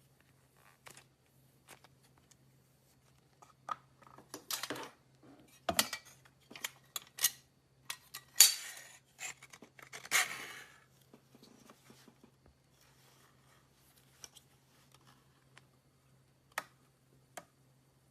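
Hands playing with clay slime: a run of sticky clicks, pops and squishes, busiest and loudest in the middle, with scattered faint clicks before and after.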